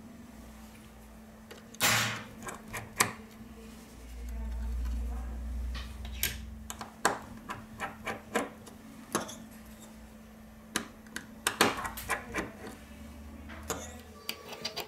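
Irregular small metallic clicks and taps from a precision screwdriver working the tiny screws and brackets in an iPhone 6's aluminium housing, with a low rumble of handling from about four to six and a half seconds in. A faint steady hum runs underneath.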